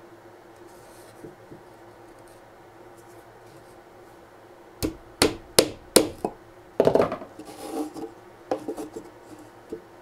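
Small hammer tapping a nail into a cedar board: four quick taps about halfway through, then a rapid cluster of taps and a few lighter ones near the end.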